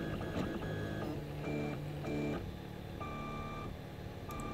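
Prusa i3-style clone 3D printer's stepper motors singing as the print head moves while printing a small test cube. The tones jump from one pitch to another every half second or so.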